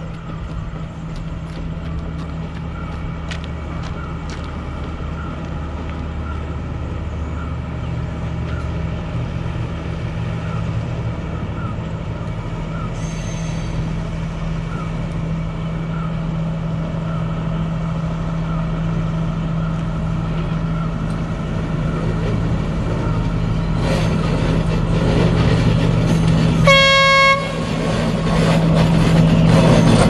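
Sri Lanka Railways Class S12 diesel multiple unit approaching across a viaduct, its diesel engine a steady low hum that grows louder as it nears. A little before the end it gives one short horn toot.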